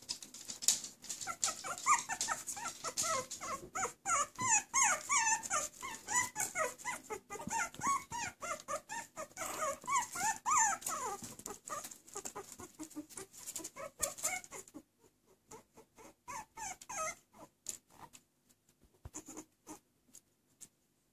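Very young puppies squeaking and whimpering in quick, short squeals that bend up and down in pitch, over scratchy clicks of them crawling on towels and a plastic bed. The squeaking dies down about two-thirds of the way through, leaving only a few last squeaks.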